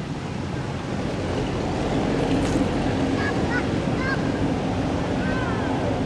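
Steady rushing background noise, heaviest at low pitch, with a few short high chirps in the second half.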